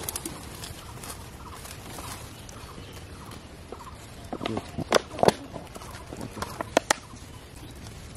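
Domestic fowl clucking: a few short, sharp calls about halfway through and two more near the end, over steady outdoor background noise.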